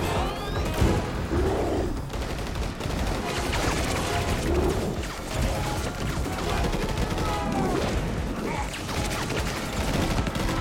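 Sustained rapid gunfire from several assault rifles firing together, the shots overlapping into a dense, unbroken fusillade, with a shout about six seconds in.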